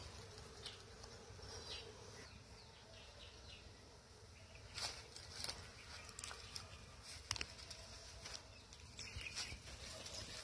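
Faint buzzing of honey bees around an open hive, with a few short sharp clicks and taps around the middle.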